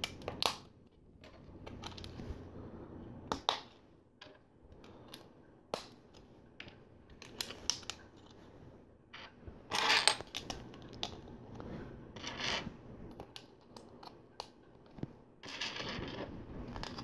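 Plastic LEGO pieces clicking and clattering as they are handled and pressed together, with short spells of rummaging through loose pieces.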